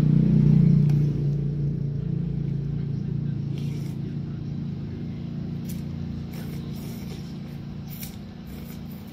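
A motor vehicle engine running with a steady low hum, loudest at the start and fading away over several seconds. In the second half come a few short slurps as noodles are sucked up.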